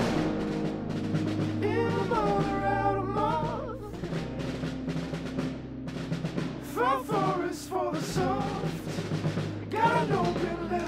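Background music: a song with singing in gliding phrases over sustained low bass notes.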